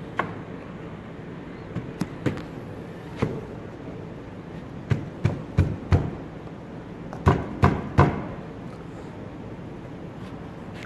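Sharp wooden knocks as a plywood cabinet panel is worked down into its slots in the cabinet frame: about a dozen single knocks, some in quick runs of two or three, with the loudest group near the end.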